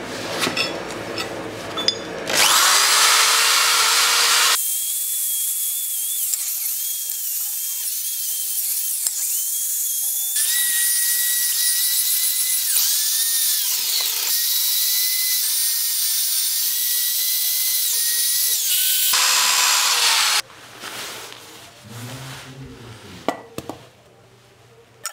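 Electric drill spinning a wire cup brush against rusty cast-iron pipe vise parts to clean them. The whine starts about two seconds in, dips briefly now and then, and stops near the end. Softer handling knocks follow.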